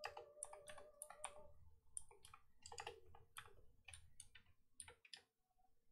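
Computer keyboard typing: faint, irregular clacks of individual keystrokes that stop near the end, over a faint steady hum.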